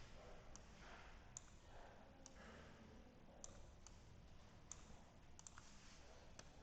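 Faint computer mouse clicks, about a dozen at irregular intervals, over near-silent room tone.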